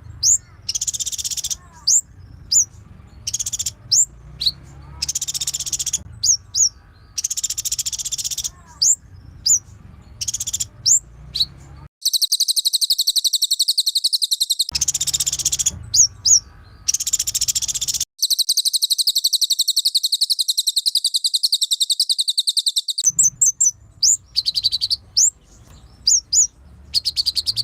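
Cililin and konin songbirds singing at full song: short, sharp, high chirps repeated again and again, alternating with long, fast, buzzy trills, the longest running about five seconds.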